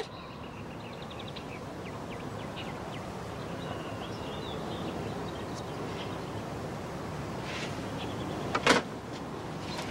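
Steady outdoor ambience: an even low hiss with faint high chirps. A short vocal sound from a person, a breath or scoff, comes near the end.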